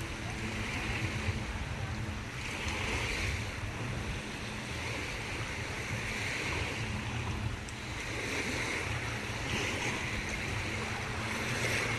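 Small waves breaking and washing up on a sandy beach, swelling every couple of seconds, with wind rumbling on the microphone.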